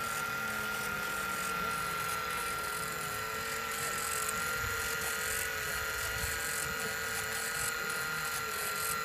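Small electric motor and propeller of a Microaces Fokker D.VIII model running at a steady speed: a high, even whine with lower wavering tones beneath it and a hiss of air.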